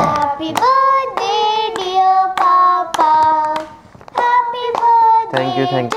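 Children singing a tune in held notes, with hand clapping; a deeper voice joins in about five seconds in.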